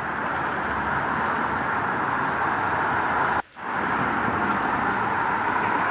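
Steady rain with city traffic running under it. About three and a half seconds in, the sound cuts out briefly and fades back in.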